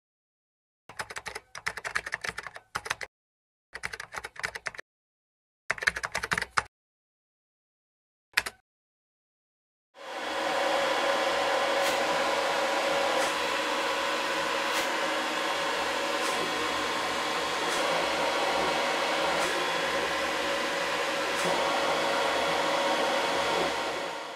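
A 3D printer running while laying down a print: the steady whir of its cooling fans with the hum of its stepper motors, starting about ten seconds in and fading at the end. Before it, three short bursts of rapid clicking and one brief click burst.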